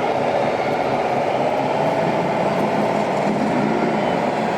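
Radio-controlled model trucks running steadily, a continuous mechanical rumble with a thin, slightly wavering whine.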